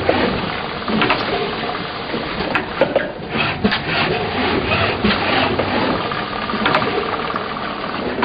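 Pot transplanter machine running, its conveyor and mechanism making a continuous clatter with frequent sharp clicks and knocks.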